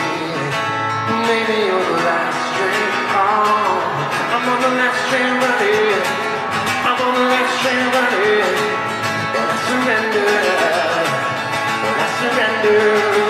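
Steel-string acoustic guitar played live and amplified through an arena sound system, a continuous strummed and picked passage heard from the audience with the hall's echo.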